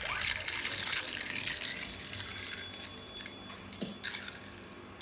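A plastic straw-spoon stirring crushed ice and yogurt in a drinking glass: a quick run of ice clinks and scrapes. From about two seconds in, a steady high ringing tone sounds over it and cuts off suddenly about four seconds in.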